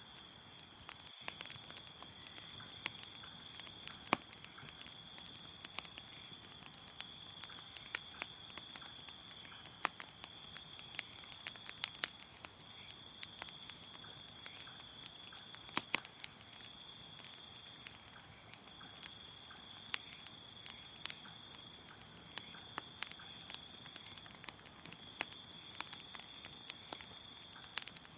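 Crickets chirping in a steady high trill over a crackling wood fire, whose scattered sharp pops and snaps come at irregular moments.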